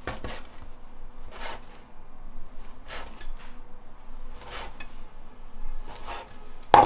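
Chinese cleaver chopping a leftover steamed bun into small cubes on a wooden chopping board: a series of short knife strokes through the soft bread, each ending in a tap on the board, about one every second or so, the last one the loudest near the end.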